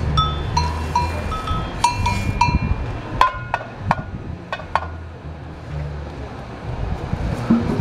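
Afro-Brazilian percussion played in a rhythm: deep drum strokes with sharp, ringing metallic-sounding hits among them, a cluster of quick sharp strikes in the middle.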